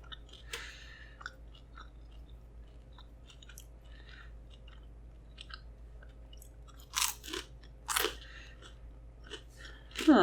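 Close-miked chewing with small wet mouth clicks, and two louder crunching bites about seven and eight seconds in.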